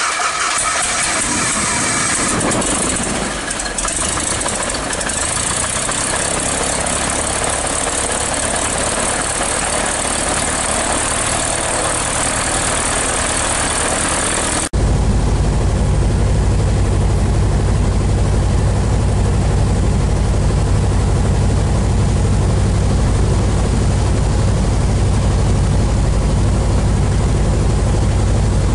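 Maule MX-7 180C's four-cylinder Lycoming engine running just after start-up, its propeller turning, heard from outside the plane. About halfway through, the sound changes abruptly to the deeper, steady drone of the same engine heard from inside the cockpit.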